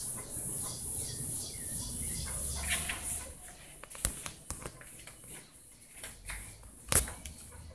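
Insects chirping high-pitched in an even pulse of about three or four beats a second, fading out about three seconds in. Under it is the rumble of the camera being handled, with a few knocks, the loudest a sharp one near the end.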